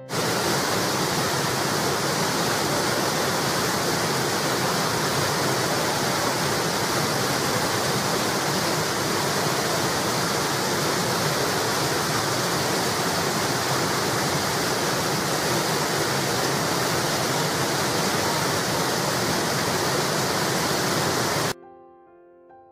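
Water pouring steadily over a low stone weir, a loud, even rushing. It cuts off abruptly near the end and soft piano music takes over.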